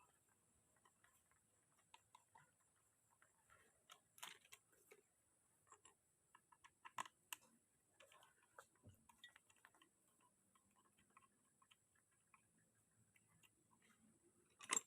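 Near silence with faint scattered clicks and light taps, a few a little louder, and a sharper knock near the end, over a faint steady high-pitched hiss.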